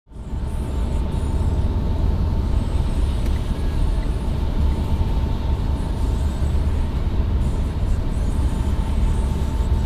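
Steady road noise inside a car cruising at about 100 km/h on a wet dual-carriageway.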